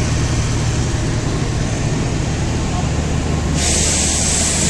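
Diesel generator set in a passenger train's power van running with a steady low hum. About three and a half seconds in, a loud steady hiss starts over it.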